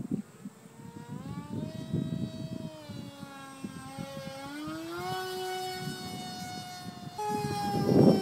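Whine of a small RC flying wing's electric 2800KV brushless outrunner motor and pusher propeller, passing overhead. Its pitch rises and falls several times and jumps higher about seven seconds in. Under it is a gusty low rumble of wind on the microphone, loudest near the end.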